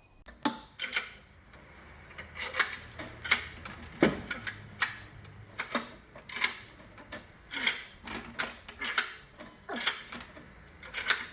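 Bench vise being wound closed to press a new rubber bush into a leaf spring eye: a regular run of metallic clicks and knocks, about two a second.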